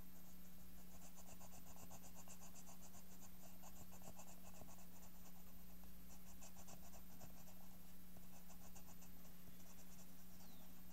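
Pencil scratching on paper in runs of quick, short back-and-forth strokes, with brief pauses between runs, over a steady low hum.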